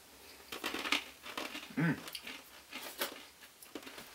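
Crunching of wasabi-coated dried peas being chewed, in irregular crackles, with a brief vocal murmur about two seconds in.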